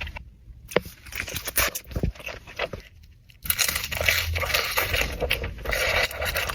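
Close-up eating sounds: biting, crunching and chewing into food, with many sharp crackles and two brief lulls.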